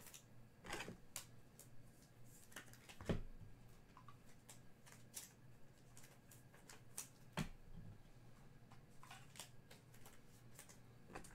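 Faint, irregular clicks and rustles of trading cards being flipped through and handled, with the loudest tap about three seconds in.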